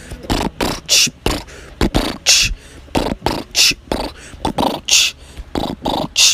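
A person beatboxing a steady beat with the mouth: low kick-drum thumps and a hissing snare sound about every second and a half.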